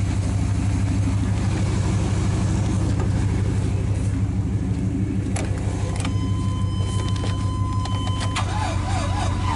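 Vehicle engine idling steadily. About two-thirds of the way through there are a couple of sharp clicks, then a steady electronic beep tone that lasts about two seconds.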